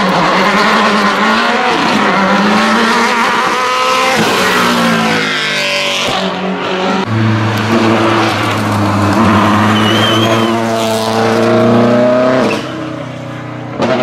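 Subaru Impreza WRC rally car's turbocharged 2.0-litre flat-four engine revving hard, its pitch climbing and dropping repeatedly through gear changes as the car accelerates and corners. The sound falls away near the end as the car moves off.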